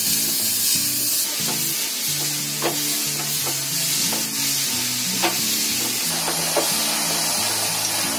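A spatula stirring and scraping a grated-coconut and jaggery filling in a steel pan over a gas flame, with a steady sizzle and a few sharp scrapes against the pan.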